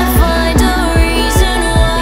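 Electronic dance music with a steady kick-drum beat, about two and a half beats a second, under sustained, sliding synth chords.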